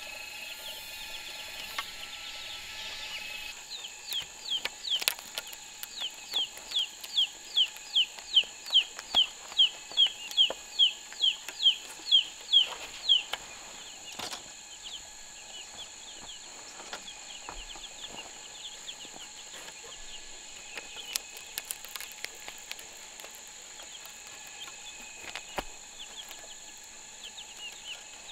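A bird calling a long series of short, high, falling notes, about two a second, growing louder for some ten seconds and then stopping. Under it runs a steady high insect drone, with a few scattered knocks.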